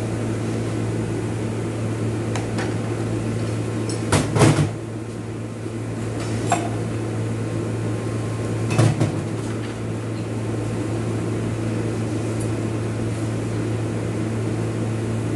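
Automatic transmission clutch-pack parts being handled on the bench: a few knocks and clinks of metal parts, the loudest about four seconds in and another near nine seconds, over a steady low hum.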